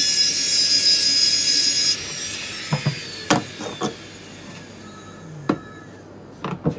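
Handheld rotary grinder (jeweller's micromotor tool) whining at a high pitch as its bit scratches the surface of a gold bar, exposing fresh metal for the purity test. After about two seconds the motor winds down with falling pitch, and a few sharp clicks follow.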